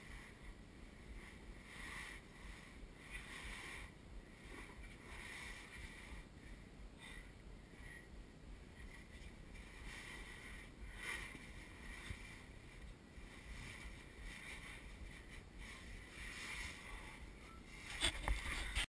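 Faint muffled scuffing and rubbing handling noise from a GoPro carried through a tight passage, with a few louder knocks near the end.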